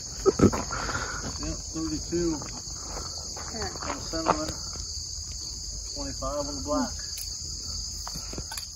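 Steady high-pitched chorus of insects, with two sharp knocks about half a second in and faint voices talking in the background.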